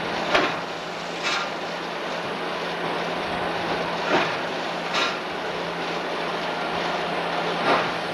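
Railway train running on track: a steady rolling noise with a constant hum, and a handful of sharp clacks in rough pairs, like wheels passing over rail joints.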